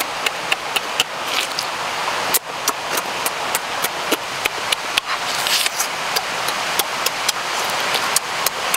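Wet smacking, sucking and chewing of someone eating cooked snail meat: an irregular run of sharp, moist clicks, several a second, over a steady hiss.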